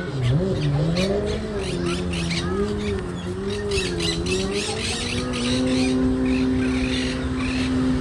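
A motor running, its pitch wavering up and down and then holding steady from about five seconds in, with small birds chirping over it.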